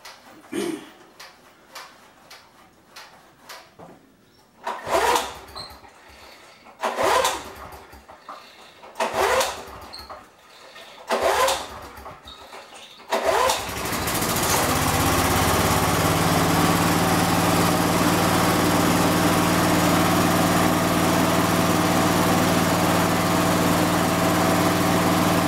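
Briggs & Stratton four-stroke lawn mower engine being pull-started. The recoil starter is yanked five times, about two seconds apart, with a brief cough on each pull. The engine catches on the fifth pull and then runs steadily. The slow start fits the owner's warning that it may be hard to start after being tipped over for an oil change.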